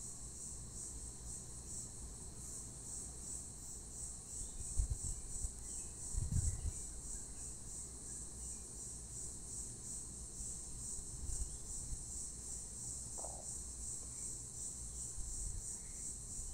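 Crickets chirping steadily in the background, a continuous high-pitched pulsing trill. A couple of soft low thumps come about five and six seconds in.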